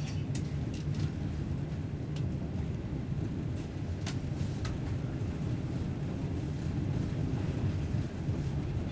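Passenger train heard from inside the carriage while moving: a steady low rumble from the running gear, with a few sharp clicks and ticks in the first half.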